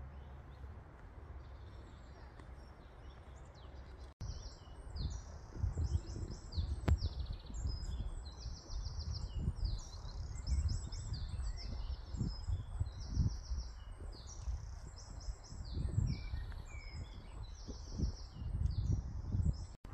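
Songbirds singing in spring woodland: short high trilled phrases repeating again and again, over the irregular low thuds of footsteps on a dirt path. The first few seconds hold only a fainter low rumble; the birdsong and steps start abruptly about four seconds in.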